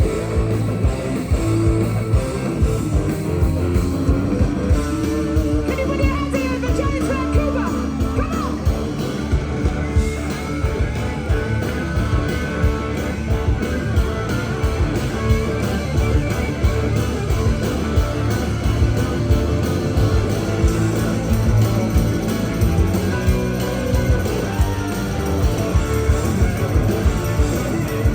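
Live rock band playing an upbeat song: a steady drum beat under electric guitar and bass, with a singing voice.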